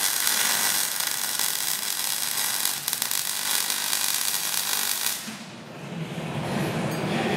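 MIG welding arc on steel frame tubing, a steady crackling hiss that stops abruptly about five seconds in when the weld is broken off.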